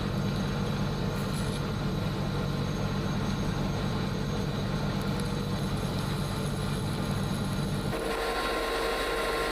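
Steady low mechanical hum. About eight seconds in its low part drops away, leaving a thinner, higher steady tone.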